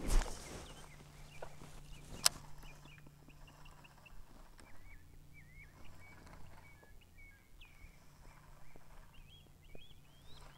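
Small birds chirping over and over in short rising and falling calls, faint, with a single sharp click about two seconds in and a faint steady low hum underneath.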